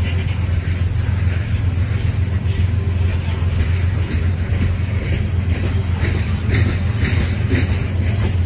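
CSX freight train's open-top hopper cars rolling past on the rails, a loud, steady low rumble of wheels on track. A string of sharper clicks grows more frequent in the second half.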